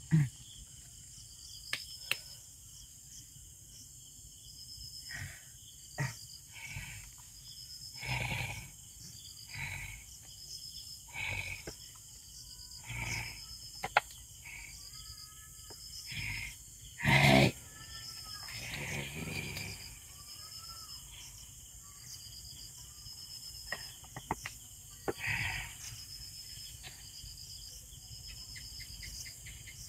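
Crickets chirping in a steady regular pulse, with scattered rustles and knocks over it; the loudest knock comes about 17 seconds in.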